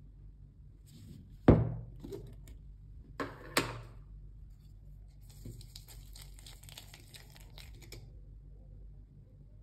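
The snap-on lid of a plastic tub of sandstone texture paste is pried off with a loud sharp snap about one and a half seconds in, followed by two lighter knocks. From about five seconds in, a palette knife scrapes and stirs the thick, gritty paste in the tub for a few seconds.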